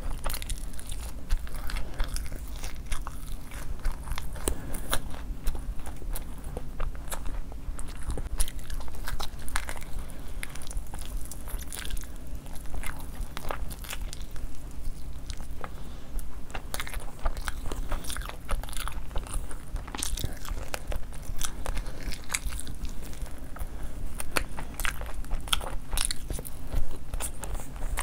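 A person eating close to the microphone, mukbang-style: biting and chewing food with many irregular short crunches and clicks.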